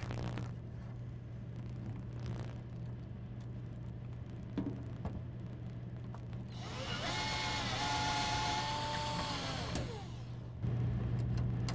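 Cordless drill driving a screw through an angle bracket that fastens a metal file cabinet to the wall: the motor whine rises about six and a half seconds in, holds for about three seconds, then winds down. Before it there is a single click of handling over a steady low hum.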